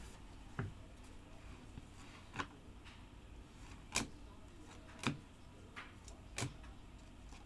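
Stiff chromium trading cards being slid one by one off a stack in the hands, each card giving a short, soft click, about five in all, spaced a second or so apart.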